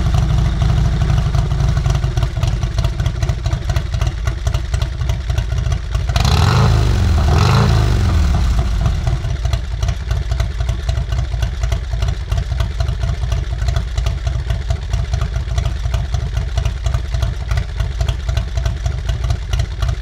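2008 Confederate Hellcat motorcycle's air-cooled V-twin engine idling, blipped twice in quick succession about six seconds in, its pitch rising and falling each time, then settling back to idle.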